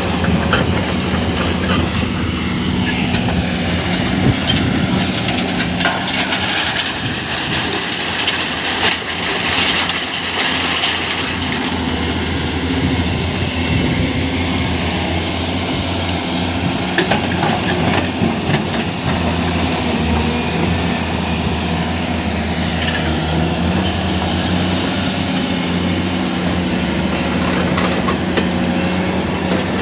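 Crawler excavator's diesel engine running under load, its pitch rising and falling as the hydraulics work, with irregular metallic clanks and rock clatter.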